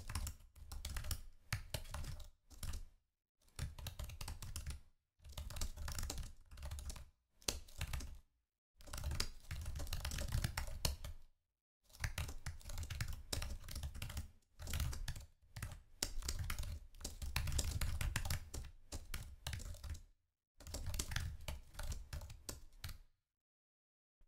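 Typing on a computer keyboard: rapid runs of keystrokes in bursts of a second or few, with short pauses between them. The typing stops about a second before the end.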